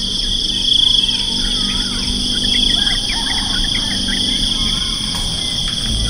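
Insect chorus: a steady shrill drone that swells about every two seconds, with scattered bird chirps through the middle.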